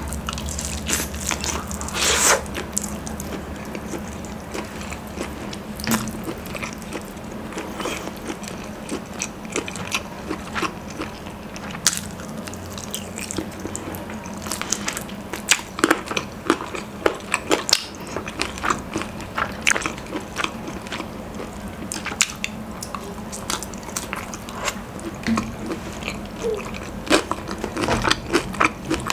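Crispy fried chicken crunching as it is bitten, chewed and pulled apart: many short, sharp crackles at irregular intervals.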